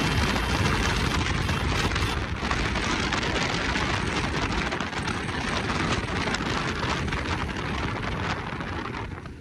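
Wind rushing over the microphone and road noise from a Bajaj Pulsar RS200 motorcycle being ridden along a road, a steady hiss with the bike running underneath. The level drops off near the end.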